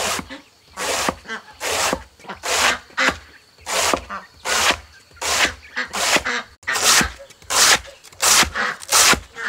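Machete chopping through a banana trunk, slicing it into thin rounds with a steady run of short cutting strokes, a little over one a second.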